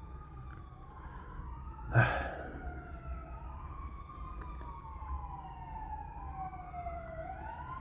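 A distant siren wailing, its pitch sliding slowly up and down, with one short sigh about two seconds in.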